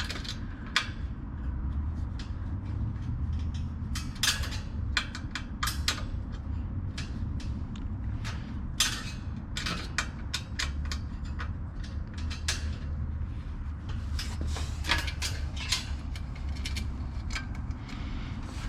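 Scattered clicks, knocks and clatters of small parts and tools being handled on a bike, irregular throughout, over a steady low rumble.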